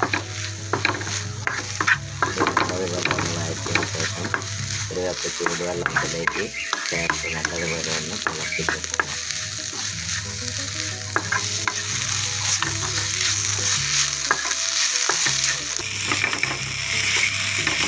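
A spatula stirs and scrapes cauliflower, onion and spice masala around a nonstick pan as it sizzles and fries, with frequent sharp clicks of the spatula against the pan. The sizzling grows louder near the end, over a steady low hum.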